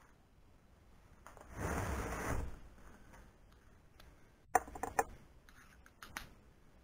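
A brief scraping rustle, then a few sharp clicks and clinks of a small metal hand tool being picked up and handled beside an aluminium-extrusion CNC frame.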